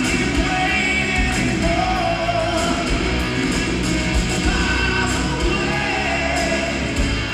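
Live rock band playing a power ballad, with electric bass, drums, guitars and a melodic lead line, heard from the audience in an arena.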